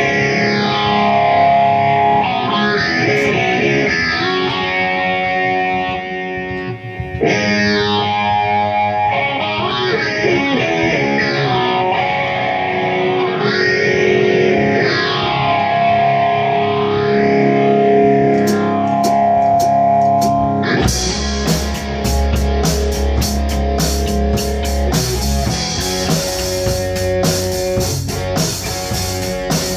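Electric guitar played through an effects unit, its tone sweeping up and down in slow waves. About two-thirds of the way through, a drum kit comes in and the two play rock together.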